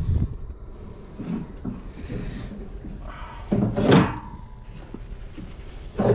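Knocks and scraping of a hydraulic hose being pulled out and handled against the bulldozer's metal, with a loud clunk about four seconds in and another just before the end.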